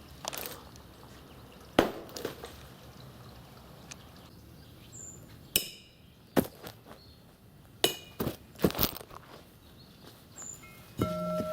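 A series of sharp, irregularly spaced knocks and clicks, some with a brief ringing tone, over a low steady background, then a short pitched tone near the end.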